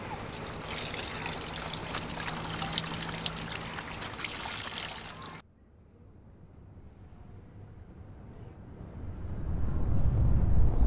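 Water splashing and trickling at a plastic bucket. It cuts off suddenly about five seconds in. A faint steady high whine follows, with a low rumble swelling near the end.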